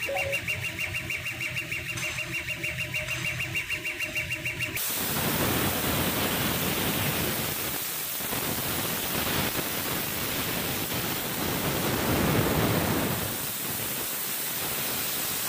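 CO2 laser cutter's motion motors driving the laser head over MDF, a fast rhythmic pulsing whine. About five seconds in, it gives way abruptly to a steady rushing hiss.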